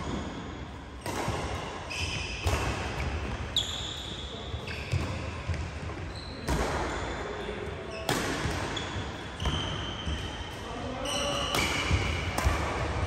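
Doubles badminton rally: racquets striking the shuttlecock every second or two, each hit echoing in a large hall, with short squeaks of court shoes on the synthetic mat between the hits.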